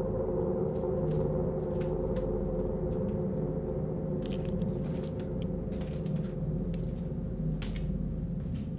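Sustained low drone holding several steady pitches, with scattered faint crunching steps on grit and debris over it, growing more frequent about halfway through.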